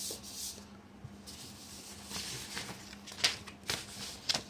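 Sheets of paper rustling and being handled as a page is swapped, with a few sharp taps and clicks in the last second and a half.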